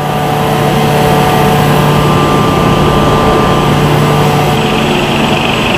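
Copper wire-drawing machines running in a factory hall: a loud, steady mechanical hum with several held tones. About four and a half seconds in, the low tone drops away and a higher hiss comes up.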